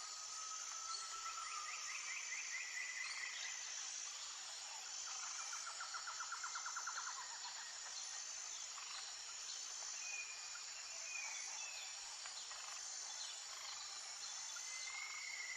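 Outdoor nature ambience: a steady high insect drone with scattered bird chirps and a few rapid trills over it.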